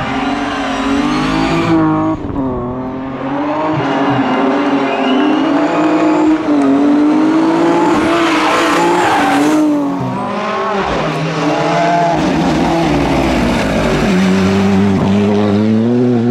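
Rally car engines revving hard through corners, the pitch climbing and dropping again and again with throttle and gear changes. About eight seconds in there is a loud burst of hissing tyre noise.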